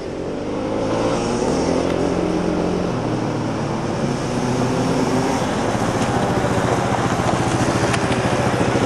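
Sport ATV engine revving on a dirt track, its pitch rising and falling with the throttle. It grows louder over the first second as the quad approaches.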